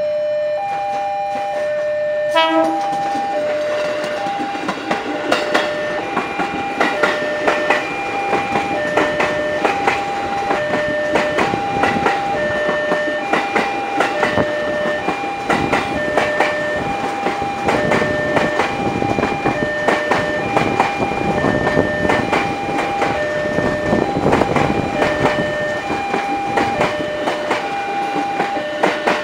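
Level-crossing warning alarm chiming two alternating notes, about one a second, as a KRL CommuterLine electric train passes close by. Its wheels click steadily over the rail joints and points.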